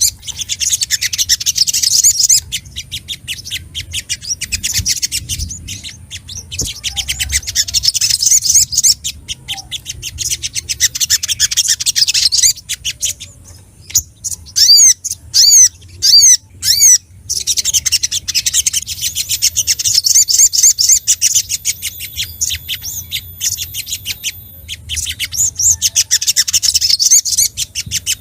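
Sogok ontong (sogon) songbird calling in long, rapid chattering trills. Partway through, the trills give way to a few separate sharp down-slurred notes, then resume. This is excited, agitated calling of the kind given when seeking a rival.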